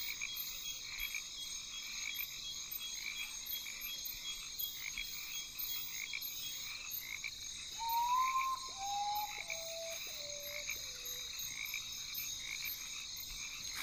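Night rainforest insect chorus of crickets and katydids, a steady shrill trill. About eight seconds in, an animal gives a call of about five whistled notes, each lower than the last.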